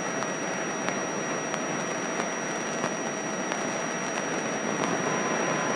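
Steady engine and wind noise inside a light airplane's cockpit in flight, heard as an even hiss through the headset intercom, with a faint steady high whine.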